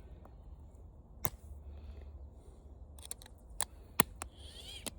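Pliers clicking and snapping against the plastic housing of a floor fan's gear motor as it is pried open around its edge: one sharp snap about a second in, then a quick cluster of clicks, the loudest about four seconds in.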